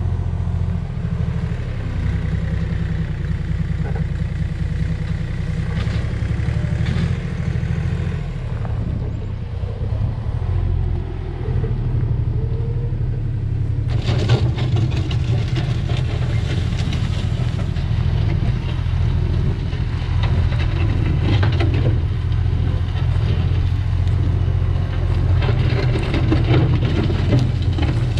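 Engine of an earth-moving machine running steadily as it pushes dirt. About halfway through, a harsher, fuller noise joins the steady engine sound.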